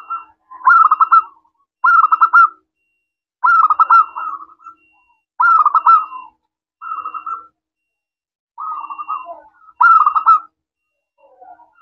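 Zebra dove (perkutut) cooing: about seven short, fast-rolling coo phrases, each under a second long, repeated every second or two.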